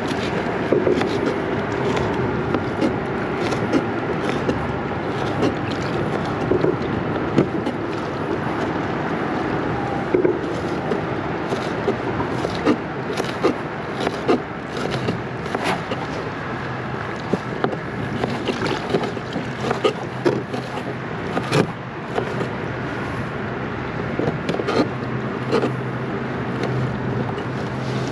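Water slapping against a plastic fishing kayak's hull, with wind, and scattered sharp clicks of shears snipping squid into bait pieces. A low steady hum joins about halfway through.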